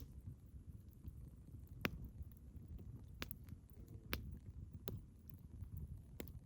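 Campfire crackling: sharp, irregular wood pops about once a second over a low, steady rumble.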